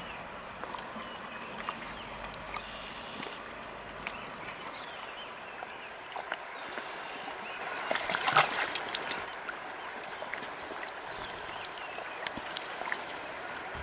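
River water running steadily around a wading angler's legs and hands, with small clicks and trickles, and a brief splash about eight seconds in as a trout is let go from the hands.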